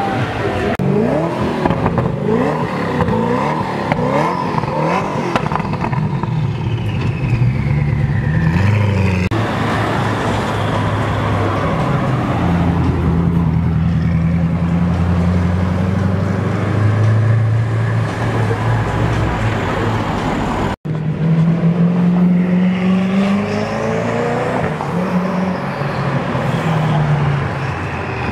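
Koenigsegg One:1's twin-turbo V8 revving, its pitch rising and falling quickly, then running steadily at low revs as the car rolls past, then climbing in pitch again as it pulls away. There is a brief break about two-thirds of the way through.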